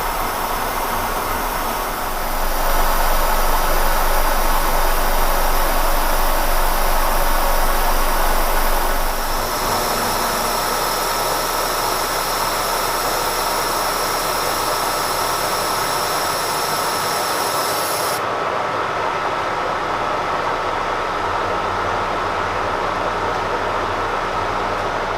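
Kearney & Trecker milling machine taking a 50-thousandths side cut with a roughing end mill under power feed: a steady machining noise with a high hiss from the air-mist coolant, which cuts off suddenly about two-thirds of the way in.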